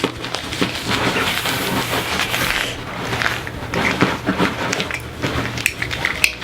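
Small plastic toy eggs being handled and rubbed in the hands, giving a continuous crackling and rustling with many small clicks.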